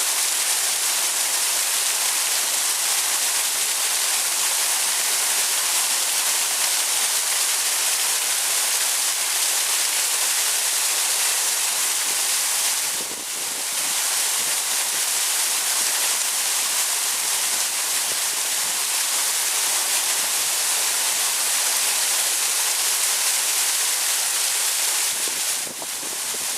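Heavy falling water rushing close to the microphone, a loud steady torrent, with a brief dip about halfway through.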